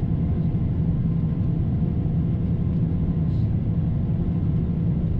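John Deere T670i combine harvester running steadily: an even, low engine drone at constant pitch.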